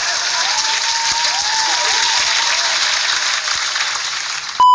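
Loud applause and cheering laid in as a sound effect, starting abruptly. Just before the end a loud steady beep, like a censor bleep, cuts in.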